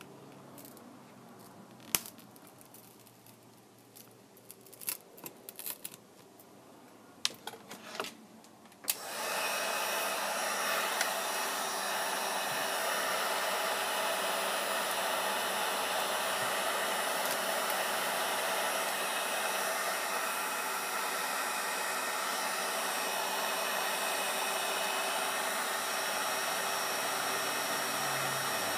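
A few sharp clicks and taps of small tools, then about nine seconds in a hot-air blower switches on and runs steadily, as used in screen repair to warm and soften the adhesive holding the glass and LCD assembly.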